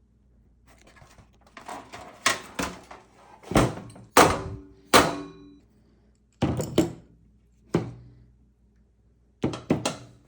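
Metal parts of a disassembled propane camping stove knocking and clanking together in irregular clusters of sharp knocks. The loudest knocks come in the middle and carry a brief metallic ring.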